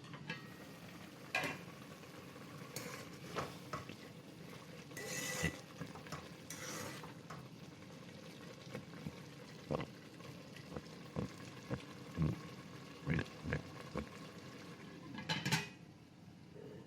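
A spoon stirring minced meat as it cooks in a metal pot, with many short clinks and knocks against the pot and a few longer scrapes.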